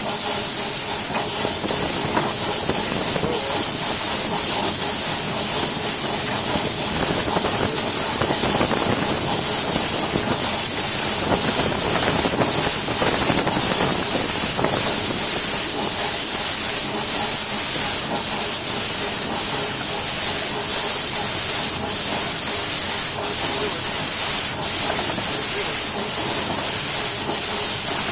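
2-ft gauge Crown steam locomotive under way: a steady, loud hiss of steam with a faint regular beat.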